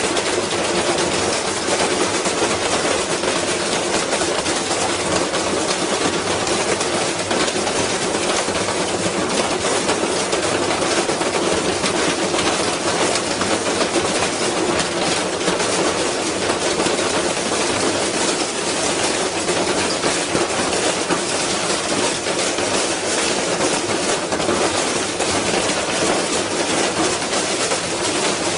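Washing machine spinning with a heavy object inside its drum: a continuous rapid clattering and banging as the badly unbalanced machine shakes itself apart.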